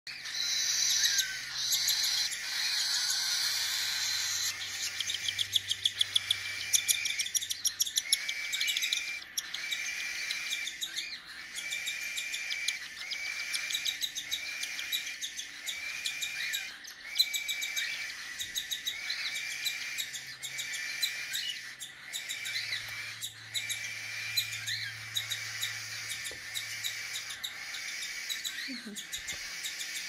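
Young cockatiel chick making food-begging calls while being hand-fed formula from a syringe: a rapid pulsing chatter for the first several seconds, then short rasping calls repeated about once a second.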